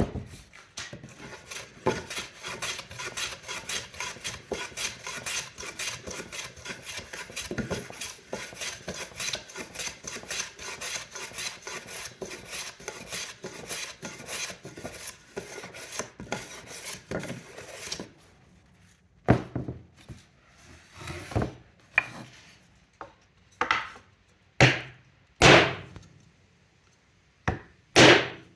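Hand saw cutting wood with quick, even strokes, stopping about eighteen seconds in. After that come a string of separate sharp knocks on wood, roughly a second apart.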